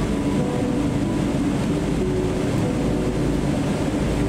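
Inside the cabin of a Boeing 777-300 taxiing: a steady low rumble of the engines at low thrust and the aircraft rolling along the taxiway, with faint short whining tones coming and going.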